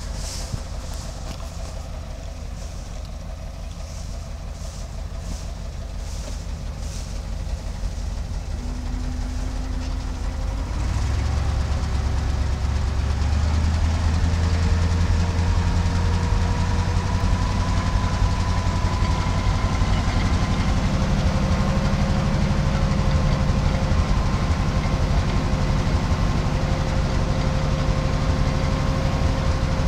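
The 345 gas V8 of a 1966 International 1700 grain truck running at idle. About a third of the way in it takes on load and gets louder, and a steady whine comes in that slowly creeps up in pitch. This is the power-take-off hydraulic pump raising the dump box.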